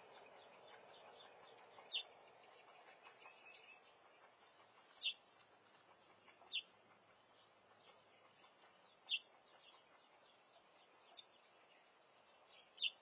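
A young bird chirping: six single short, high chirps spaced a few seconds apart, over a faint background hiss.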